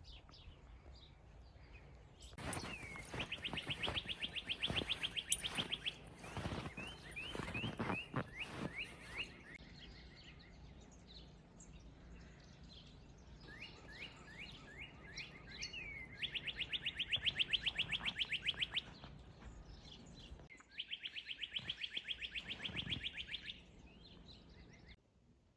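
A small songbird singing: three fast trills of many quick, even notes, the last two near the end, with looser series of down-slurred chirps between them.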